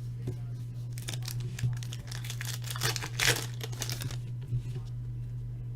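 Trading-card pack wrapper being torn open and crinkled by hand: a run of short crackling rustles.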